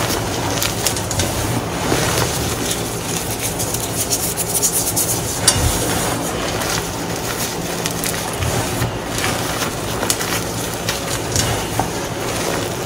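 Hands crushing and crumbling clumps of reformed gym chalk into powder: a continuous crunching and rubbing, thick with fine crackles, with a couple of soft thuds.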